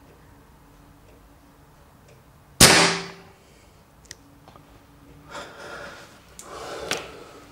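A single sharp, loud bang about two and a half seconds in, dying away over half a second. A few seconds later come rustling and scraping noises as the camera itself is jostled and knocked out of position.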